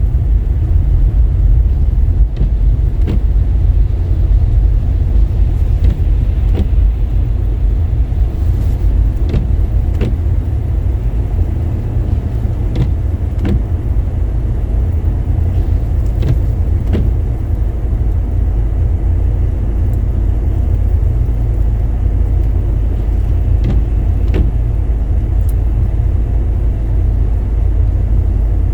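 Car driving on a wet, slushy road, heard from inside the cabin: a steady low rumble of road and tyre noise, with scattered faint ticks at irregular intervals.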